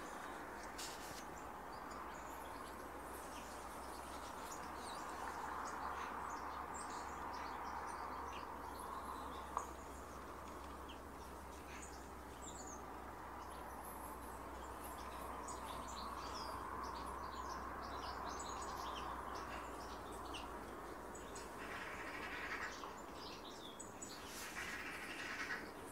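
Small garden birds chirping and calling in short, high notes, scattered throughout, over a steady background hum. There is a single sharp click about ten seconds in.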